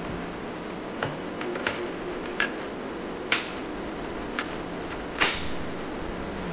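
Plastic clicks and knocks from a toy crossbow gun being handled, about eight sharp clicks scattered over a steady background hiss, the loudest about five seconds in.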